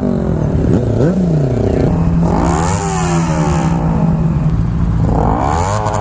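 Motorcycle engines running, with an engine revved up and let back down twice, about two and five seconds in, over a steady low engine hum.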